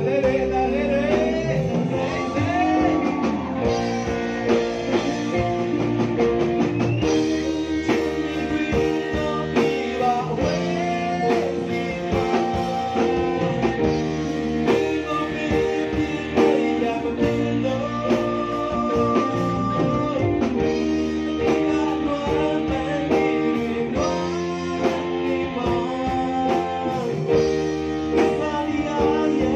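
Live band playing a song: a man singing lead through a microphone, backed by electric guitar, bass guitar and drum kit.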